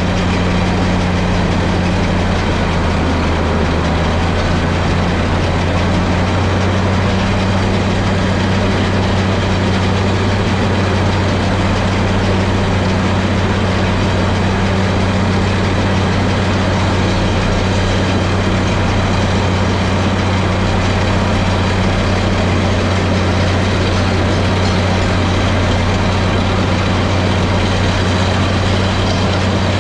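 Tractor diesel engine running steadily at a constant speed, with an unchanging low hum.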